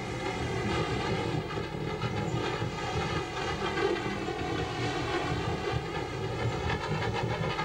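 Fishing boat's engine running steadily under way: a constant drone with an even pitch.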